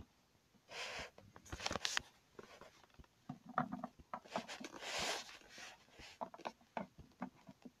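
Hands handling small toys close to the microphone: soft rustling in short spells, with light clicks and taps.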